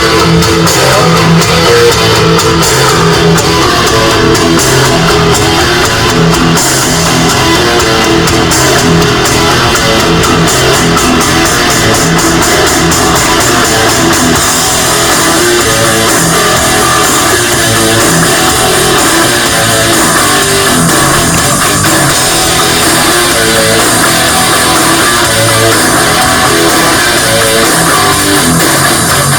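Loud, steady rock music with guitar and drums.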